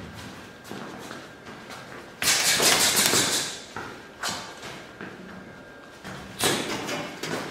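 Thuds of low kicks landing on a braced thigh and counter-punches during a partner drill, with footsteps and shoe scuffs on a rubber gym floor. A longer burst of noise comes about two seconds in, and shorter sharp hits about four and six seconds in.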